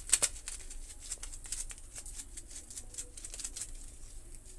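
Chili flakes sprinkled onto a cheese-topped pizza on a steel plate: a light, irregular pattering of small ticks, with two sharper clicks just after the start.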